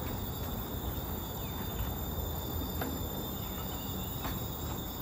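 Forest insects droning steadily in several high held tones, with a few faint footstep ticks and a steady low rumble underneath.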